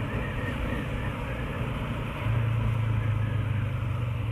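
Motorcycle engine running under way, a steady low drone that gets louder about two seconds in.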